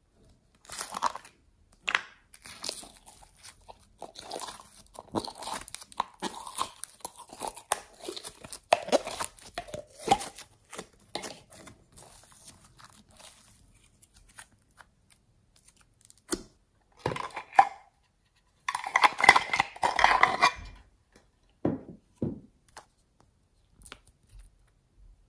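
Slime being squished and stretched by hand: sticky crackling and popping with many quick clicks through the first half. After a quieter stretch come louder bursts of squelching, the longest lasting about two seconds.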